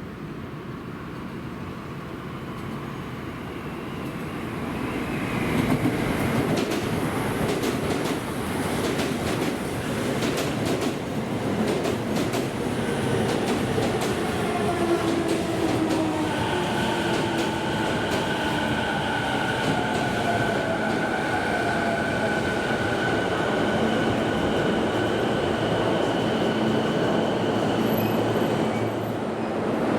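Toei Shinjuku Line electric train pulling into the station: wheels clacking over rail joints, then the motors' whine falling in pitch as it brakes, with steady high tones toward the end.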